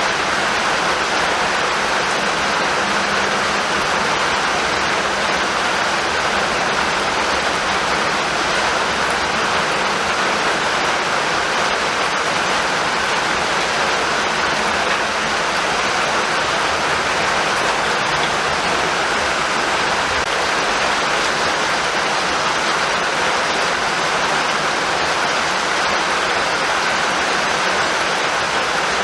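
Steady rainfall: an even, unbroken hiss of falling rain with no thunder.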